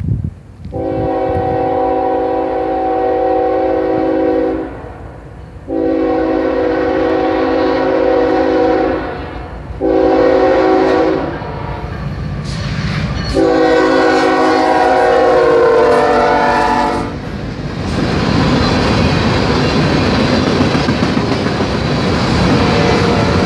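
Norfolk Southern diesel locomotive's multi-chime horn sounding the grade-crossing signal: two long blasts, a short one and a final long one. The train's rumble then fills in as it passes, with wheels clattering over the rail joints.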